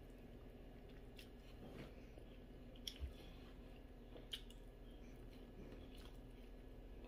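Faint chewing and mouth sounds of someone eating braised pork leg by hand, with a few soft wet clicks.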